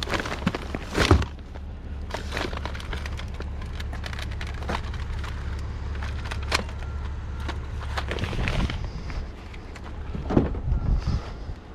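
Car engine idling steadily, with scattered knocks and clatter, the sharpest about a second in and a cluster near the end.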